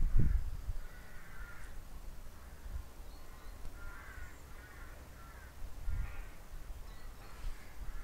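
Crows cawing repeatedly in short runs, with dull low knocks from a wooden pole being handled, the loudest near the start.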